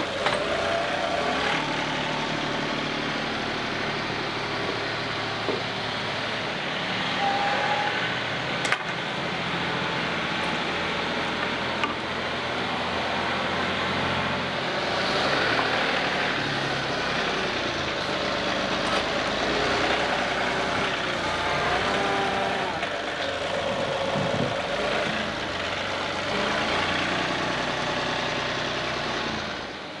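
John Deere 2038R compact tractor's diesel engine running steadily, its speed rising and falling at times.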